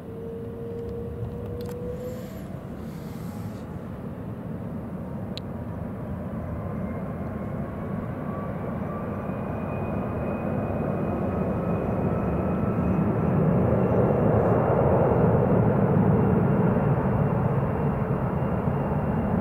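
Jet airliner taking off: engine noise at takeoff thrust grows steadily louder, peaks about three-quarters of the way through, then eases slightly, with a faint whine slowly rising in pitch.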